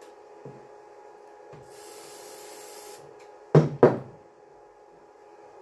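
Brake caliper parts being handled: a light scrape, then two loud knocks in quick succession about three and a half seconds in, as the parts are struck or set down.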